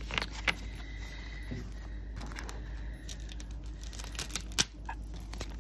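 Planner sticker sheets being shuffled and set down on a tabletop: scattered paper rustles and light taps, the sharpest tap about four and a half seconds in.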